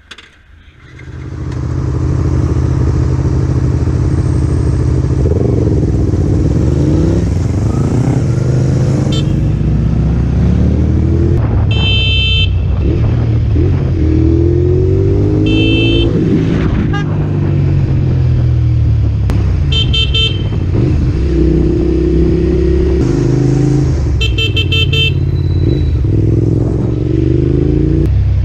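Motorcycle engine under way, starting about a second in, its pitch rising and falling over and over as the rider accelerates and changes gear. Several short horn beeps sound over it.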